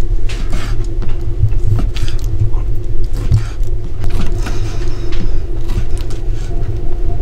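A steady low rumble and hum, with scattered light knocks and clatter from handling kitchen utensils and food.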